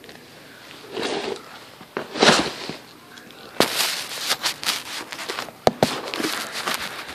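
Handling noises: two rustling swells, then from about three and a half seconds in a run of sharp clicks and taps.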